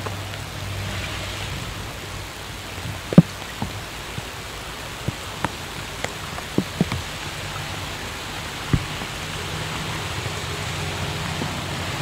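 Steady outdoor hiss with a low hum under it and scattered light clicks and taps at irregular intervals, the sharpest about three seconds in.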